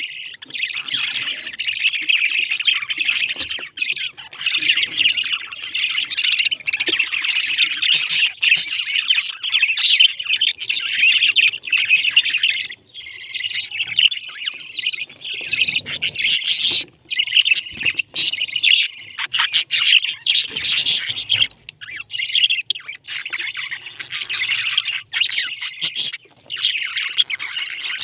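A flock of budgerigars chattering, a dense, continuous twittering and chirping with a couple of brief lulls.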